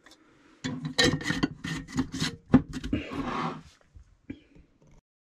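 Kitchen items being handled on a countertop: a run of irregular knocks and clatters over about three seconds, then a few faint ticks.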